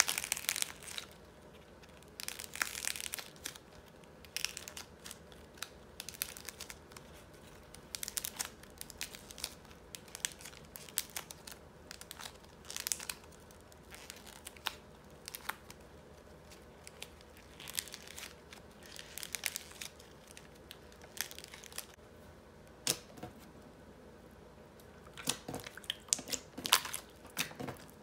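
Hardened coating on a ball of modelling clay cracking and crinkling as thumbs press into it and pull it apart, in irregular bursts of sharp crackles, the loudest at the very start.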